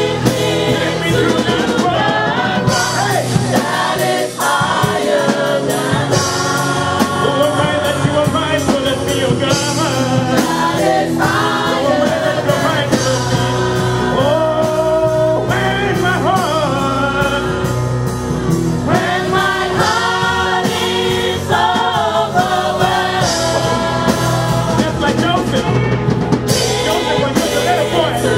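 Live gospel worship singing: a male lead and a group of women singers on microphones, backed by a band with drums under sustained chords.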